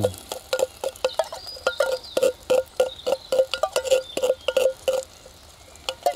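A wooden stick knocks and scrapes beans out of a tin can into a metal camping pot. Each knock gives a short metallic ring, about three a second, and the knocks thin out near the end.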